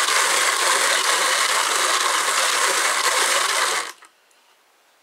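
Wooden drum carder turning fast as wool fibre is fed back through it, giving a steady mechanical running sound from the drums and drive. It stops abruptly about four seconds in.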